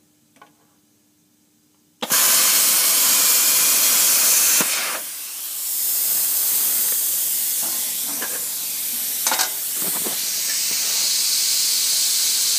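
Hypertherm Powermax 30 plasma cutter firing about two seconds in and cutting along a guided line: a loud, steady hiss that dips briefly partway through and then carries on.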